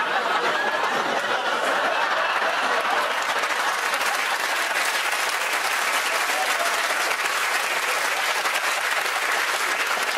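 Studio audience applauding steadily, with laughter mixed in.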